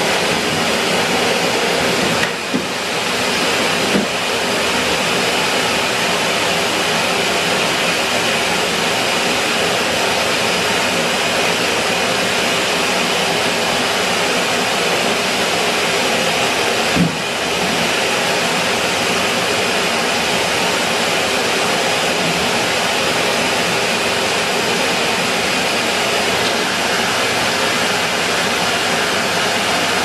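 Henry cylinder vacuum cleaner running steadily, a constant motor-and-airflow noise. A brief knock comes about two seconds in and another about seventeen seconds in.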